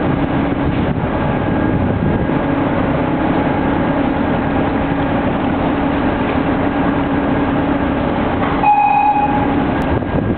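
Steady low engine drone mixed with wind and water noise. About three-quarters of the way in, a single horn toot sounds once, one steady tone lasting about a second.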